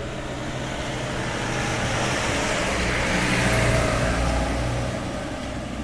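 A motor vehicle driving past, its engine and road noise swelling to a peak about three and a half seconds in and then fading.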